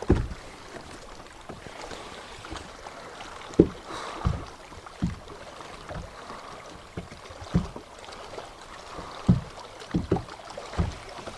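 Irregular low knocks and thumps against a small boat's hull, over a faint steady wash of wind and water.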